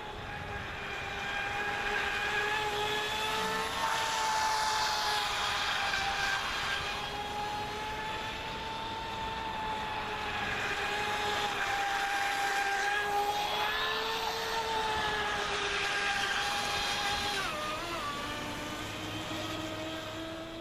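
Radio-controlled boat's brushless electric motor driving a Kyosho Dolphin outboard through a replacement flex shaft, running at speed as a steady high whine that wavers slightly in pitch over a hiss. Near the end the pitch drops as the throttle comes back.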